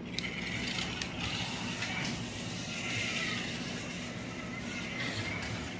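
1/32 scale slot car's small electric motor and newly fitted pinion gear running as it laps the track: a quiet whine that rises and falls with the car's speed, with a few faint clicks.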